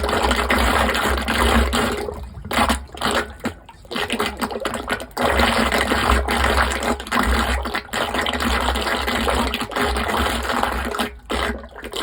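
Backed-up water rushing away down a just-unblocked drain, coming in surges with a couple of brief lulls, over a low rumble.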